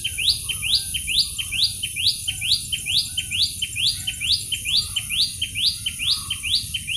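Common tailorbird giving its fast call: a quick, steady series of sharp, upward-sweeping notes, about two a second.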